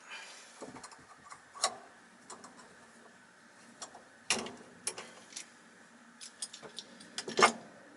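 Irregular clicks and knocks of small metal motor parts being handled and fitted on a workbench, over a faint steady hum; the loudest knock comes near the end.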